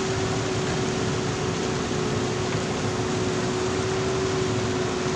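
JCB backhoe loader's diesel engine running at a steady speed, a constant drone with a steady whine held on one pitch.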